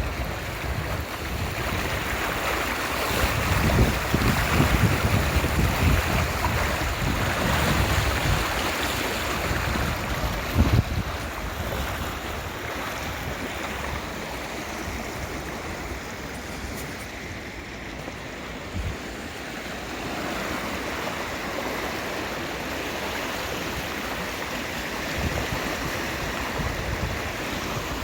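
Wind buffeting the microphone in gusts over a steady rushing noise. The gusts are heaviest in the first ten seconds, with one sharp bump about ten and a half seconds in, then ease off.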